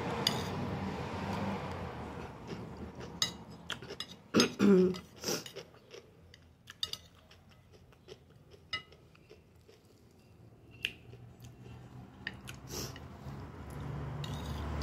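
Close-up eating sounds: chewing and biting of a fried pork chop and rice, with scattered short clicks of a fork and spoon against the plate. The loudest cluster comes about four to five seconds in.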